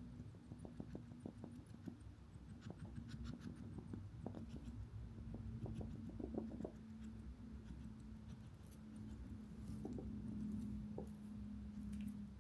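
A pet hedgehog sneezing and snuffling: faint short sniffs and ticks with a few sharper sneezes, the loudest about six seconds in, over a steady low hum.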